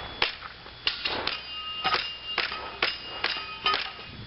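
Airsoft pistol string fired at small steel airsoft targets: about ten sharp hits, roughly two a second, each followed by a brief metallic ring, the plates ringing at a few different pitches.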